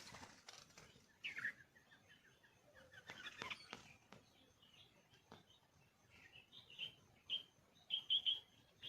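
Birds chirping in short high notes, with a quick run of several chirps near the end.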